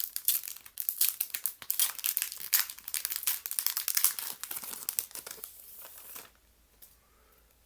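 Packaging crinkling and tearing as a standee kit is unwrapped, a dense run of crackles that stops about six seconds in.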